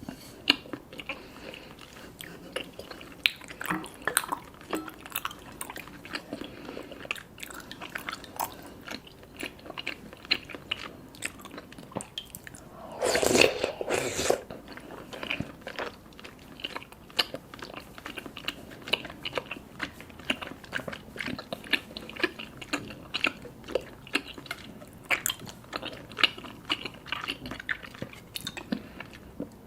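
Close-up mouth sounds of a person chewing sticky, chewy tapioca boba pearls, with many small wet clicks and smacks. About halfway through comes a louder stretch of a second or so, typical of slurping milk tea and pearls up a straw.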